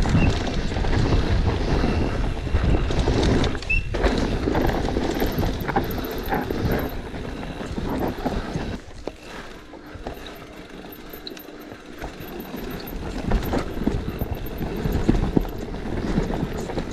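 Cube Two15 downhill mountain bike ridden fast down a dry, dusty dirt track: tyres rolling over loose dirt and the bike clattering over bumps and roots in quick knocks. The clatter eases off for a few seconds in the middle, then picks up again.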